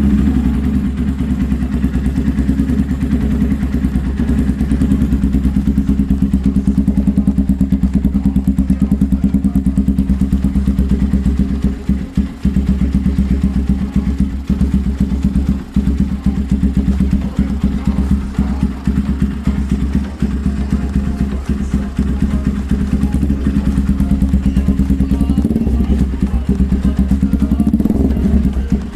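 Motorstar Explorer 250 motorcycle idling steadily through a new SC Project aftermarket exhaust, with an even, pulsing exhaust note.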